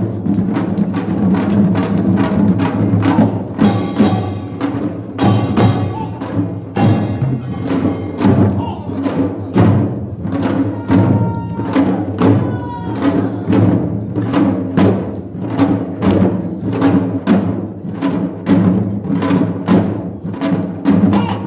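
Korean farmers' music (nongak) played by a percussion band: drums and gongs striking a steady, driving beat, with bright metallic ringing over it.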